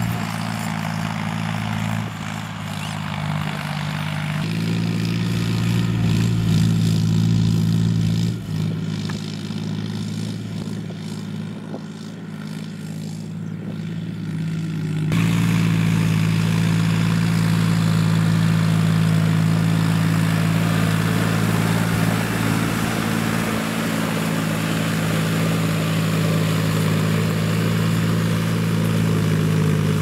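John Deere tractor's diesel engine running steadily under load while it works the field. The drone holds an even pitch and changes abruptly in tone twice, about four seconds in and about halfway through.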